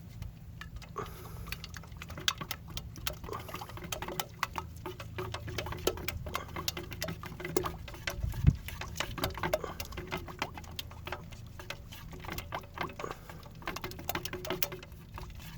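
Pigmented gel coat being stirred by hand in a mixing cup: a quick, irregular run of light clicks and scrapes, with one louder knock about halfway through, over a steady low hum.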